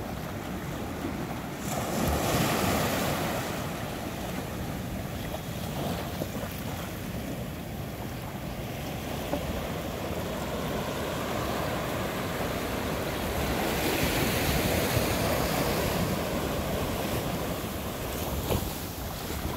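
Ocean waves breaking and washing ashore, swelling twice, a couple of seconds in and again near two-thirds through, with wind on the microphone.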